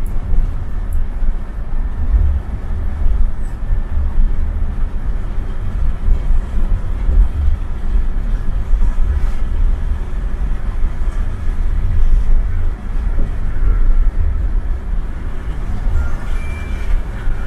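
Hino coach at highway speed heard from inside the cabin: a deep, steady rumble of engine and tyres on the road.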